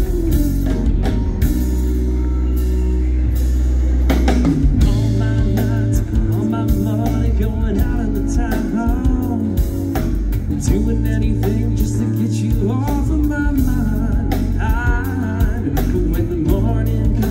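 Live yacht rock band playing a song: electric guitar, bass guitar and drum kit, with singing over the band from about four seconds in.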